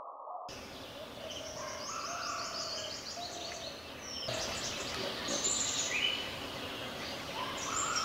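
Forest ambience with several birds chirping and calling over one another, mostly short high notes. It opens with a brief muffled sound before the full birdsong comes in about half a second in, and the background changes with a cut about four seconds in.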